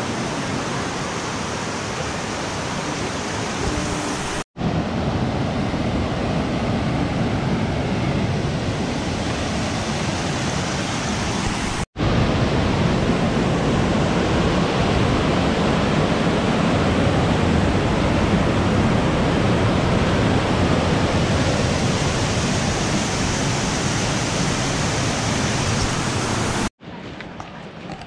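Waterfall and cascading white water rushing steadily. The rushing breaks off abruptly three times at edits, and after the last cut, near the end, it turns to a much quieter water sound.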